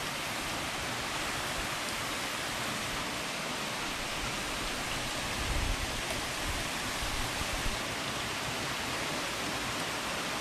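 Heavy rain pouring down steadily, an even hiss, with a couple of brief low bumps about halfway through.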